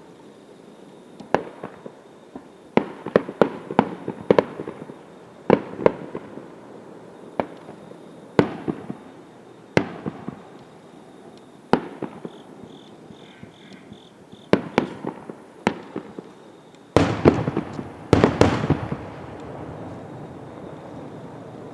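Fireworks shells bursting: a string of sharp bangs one to two seconds apart, then near the end a dense run of crackling bangs that trails off.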